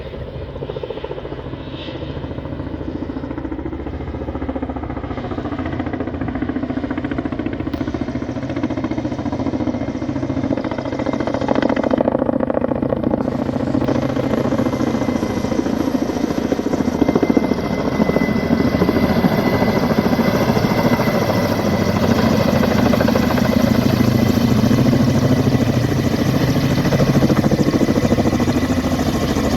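Firefighting helicopter flying toward the listener, its rotor and engine noise growing steadily louder as it approaches.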